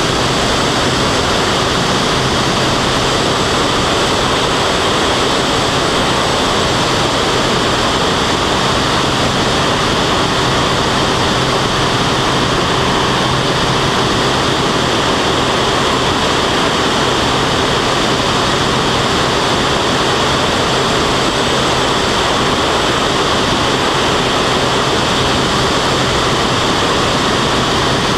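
Steady rush of wind over a camera mounted outside an aerobatic biplane in flight, with the engine and propeller droning underneath at a constant pitch.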